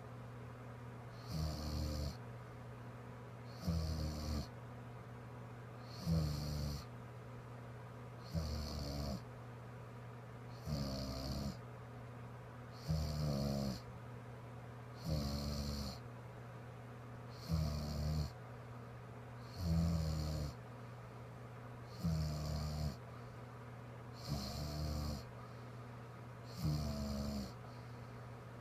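A woman snoring in her sleep. She gives one snore every two seconds or so, in a steady rhythm, over a constant low hum.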